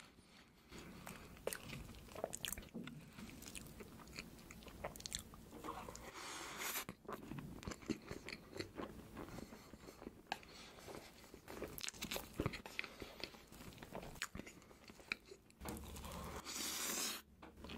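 Close-miked mukbang eating sounds: wet chewing, lip smacking and sharp mouth clicks as a man eats a creamy mille-crepe cake, with a louder, noisier mouthful about seven seconds in and a big bite near the end.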